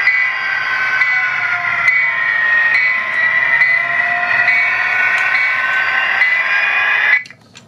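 HO scale Walthers Proto 2000 GP60 model locomotive's onboard sound decoder playing a diesel engine sound through its small speaker, with tones sliding slowly in pitch. It is powered from a DC controller rather than DCC and runs roughly: the sound cuts out for about half a second near the end, then comes back.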